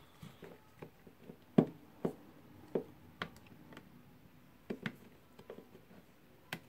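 Scattered clicks and light knocks from hands handling a cordless drill's plastic housing and its motor-gearbox unit on a wooden bench during reassembly, with a louder knock about a second and a half in.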